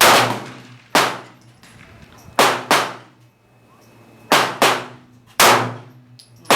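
Gunshots from several shooters firing, about eight shots at irregular spacing, some in quick pairs, each with a ringing tail.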